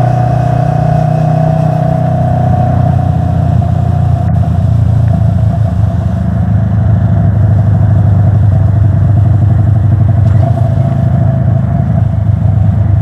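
Motorcycle riding at highway speed: the engine's steady low drone mixed with wind rushing over the microphone, growing a little louder about halfway through.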